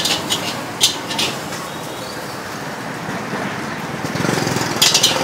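Street-stall ambience: a motor vehicle engine running in the street, growing louder about four seconds in, with sharp clinks of metal pots and utensils about a second in and again near the end.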